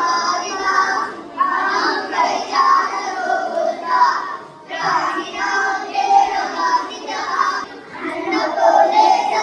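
A group of children singing a Kannada rhyme together in phrases of a few seconds each, with short breaths between lines.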